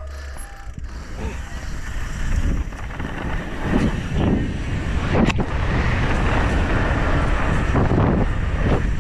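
Wind rushing over a helmet-mounted action camera's microphone and a downhill mountain bike's tyres rolling over dirt and rock, growing louder as the bike picks up speed. There is a sharp knock about five seconds in.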